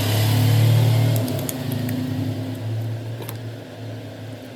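Small electric hot-air blower running with a steady motor hum and a rush of air, loudest in the first second and easing off after. It is heating the phone's glued back panel to soften the adhesive. A few light clicks fall through the middle.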